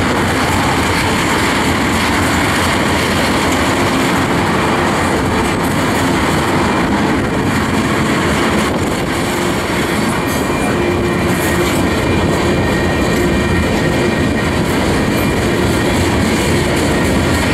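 Freight train of tank cars rolling past at close range: a steady, loud noise of steel wheels running on the rails.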